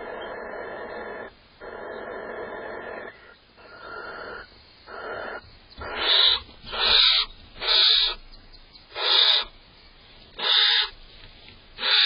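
Barn owl calling inside a nest box: a long, steady wheezing call for the first few seconds, then short, harsh hissing screeches about once a second from halfway through. The calls come from the female, annoyed at the male eating her cached prey.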